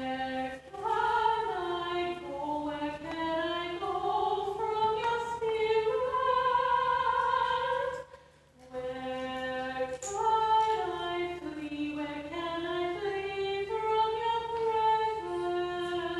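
A solo voice singing a slow, wordless-sounding melody of long held notes, in two phrases with a short break about eight seconds in, played back through the screen's speakers into the room. A faint steady low hum lies underneath.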